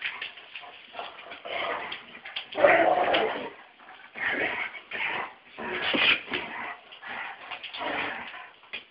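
Two dogs play-fighting, making a string of short, uneven vocal bursts as they wrestle, the loudest about three seconds in.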